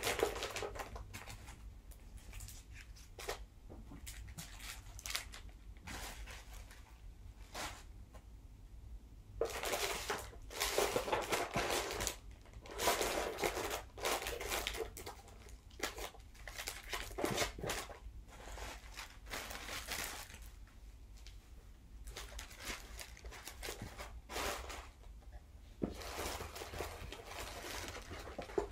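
Rustling and crinkling of packaging as items are handled and unwrapped, in irregular bursts with small clicks and knocks between.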